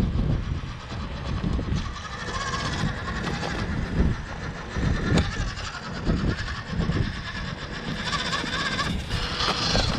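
The small electric motor and gearbox of a 1/16-scale RC rock crawler whining as it creeps up a rock crevice, over irregular low rumbles. The whine starts about two seconds in.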